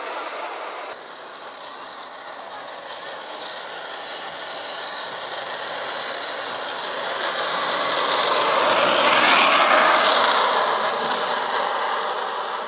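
Wooden carruzza (downhill gravity cart) on ball-bearing wheels rolling on asphalt, a rattling clatter that grows louder as it approaches, peaks about nine seconds in, then eases as it passes.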